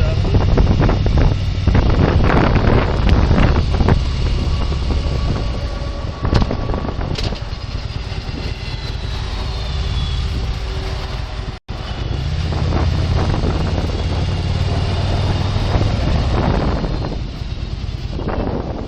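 Vehicle engine running steadily, with wind noise on the microphone and a few knocks in the first seconds. The sound cuts out abruptly for an instant about two-thirds of the way through.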